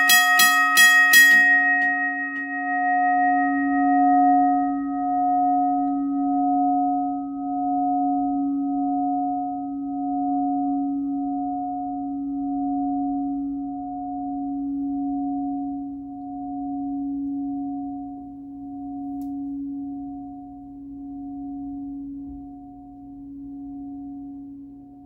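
Teardrop-style electric railroad crossing bell: its hammer strikes the gong rapidly, about three times a second, for the first second and a half. The strikes then stop, and the gong rings on, very long and slowly fading, with a steady wavering pulse about every second and a half.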